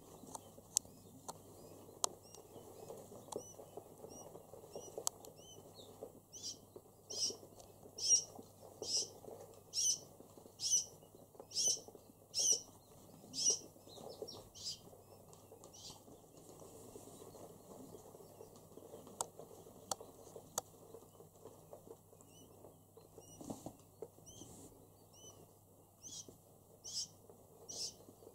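Newly hatched quail chicks peeping: short, high, thin chirps. They come singly at first, then in a steady run of about one a second through the middle, and again near the end. A few faint sharp clicks fall in between.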